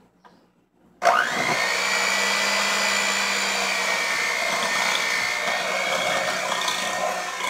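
Electric hand mixer switched on about a second in, its motor whine rising quickly and then running steadily with a low hum. The beaters are mixing eggs into creamed shortening and sugar.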